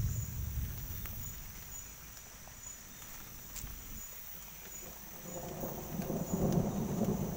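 Insects chirping steadily in short repeated high notes, while a low thunder rumble swells up over the last two seconds.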